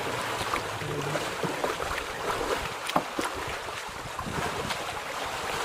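Water lapping and splashing around a wooden canoe, with wind on the microphone and scattered small knocks and splashes.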